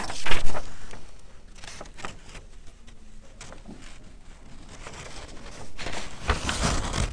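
A sheet of paper shifted on a desk: a knock and rustle about a third of a second in, then scattered small clicks and a longer rustle of handling near the end.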